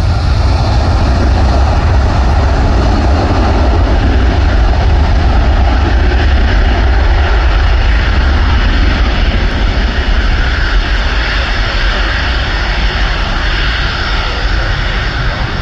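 Boeing 757 jet engines at take-off power as the airliner accelerates down the runway: a loud, steady roar that eases slightly as it pulls away.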